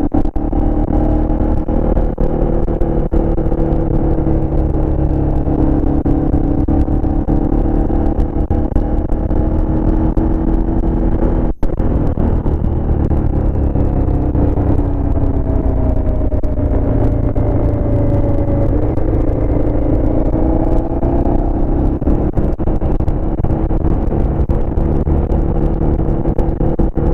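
Aprilia Shiver motorcycle's V-twin engine running steadily while riding, heard from the handlebars with heavy wind noise on the microphone. Its pitch sinks a little and rises again partway through, as the throttle eases and opens.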